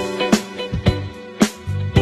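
Background music with a steady beat: plucked guitar-like notes over bass and sharp drum hits.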